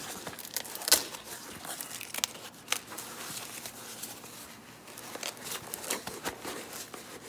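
Hands opening a cardboard box and unwrapping white paper wrapping: rustling and crinkling with scattered sharp crackles, the loudest about a second in.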